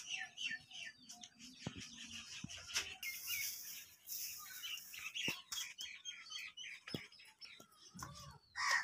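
Small birds chirping in quick short calls throughout, with a few light knocks and a brief rustling hiss about three seconds in as a straw broom is handled.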